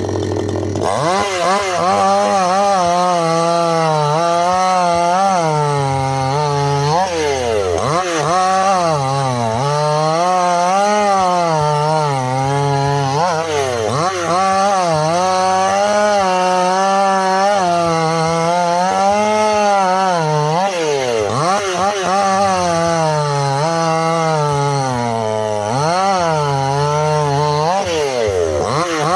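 Two-stroke chainsaw running under load while cutting wood. Its engine pitch wavers up and down throughout, with several sharp dips and quick recoveries.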